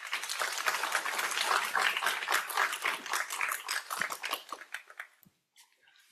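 Audience applauding, a dense patter of many hands clapping that fades out about five seconds in.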